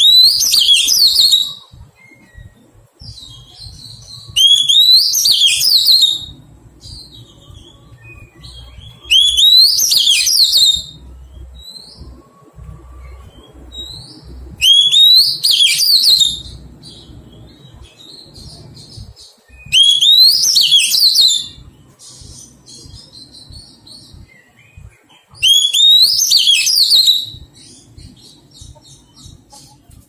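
Oriental magpie-robin singing: six loud phrases of rising high notes, each about a second and a half long, about every five seconds, with soft twittering between them.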